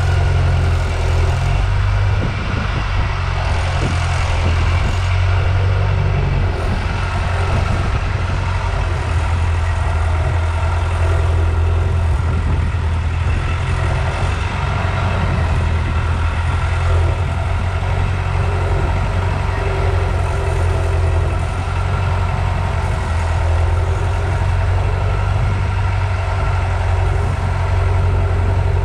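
Long-tail boat's engine running loud and steady, with a deep low drone, as the boat cruises and its wake churns the water.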